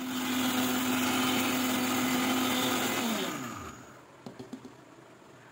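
Electric mixer grinder's small jar grinding dried urad dal into fine flour, with a steady high motor whine for about three seconds. It is then switched off and winds down, its pitch falling. A few faint clicks follow.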